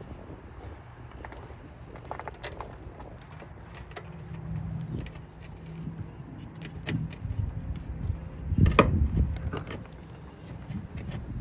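Metal clinks and knocks as the engine mount is worked loose and out of the engine bay, with one louder clunk about nine seconds in.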